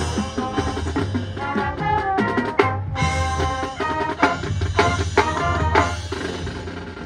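High school marching band playing a loud passage: held brass and wind chords over drums and percussion.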